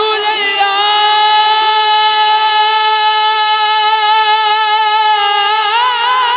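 Unaccompanied voice singing a naat, holding one long high note with a slight waver for over five seconds, then turning into a short melodic phrase near the end.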